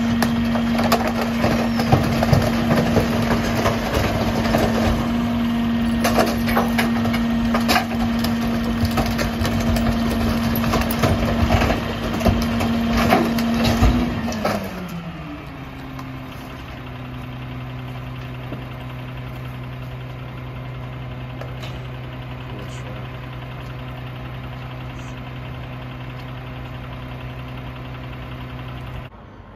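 Mack LR garbage truck's engine held at raised revs to run the Heil 5000 rear loader's packer, with clattering and knocks as bags are thrown into the hopper and compacted. About halfway through the revs fall and the engine settles to a steady idle.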